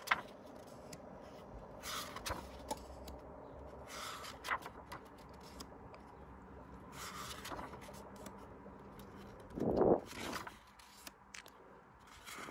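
Pages of a recycled-paper booklet being turned by hand: a short papery rustle every couple of seconds, about five in all, the loudest near the end.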